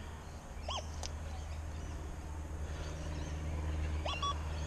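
XP Deus II metal detector in its Relic program giving short target tones as the coil sweeps over test coins and rings: a brief beep at the start, a tone that rises and falls about a second in, and another brief beep near the end, over a low steady hum.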